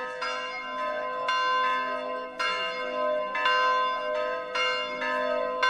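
Bells ringing in a steady rhythm: strikes come in close pairs about once a second, each left ringing on over the next.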